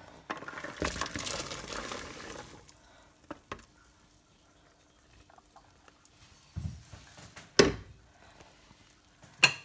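Chopped vegetables tipped from a bowl into a pot of hot ham stock, splashing and tumbling for about two seconds. Then a few small clicks and two sharp knocks of utensils or lid against the pot, the louder one about three quarters of the way through.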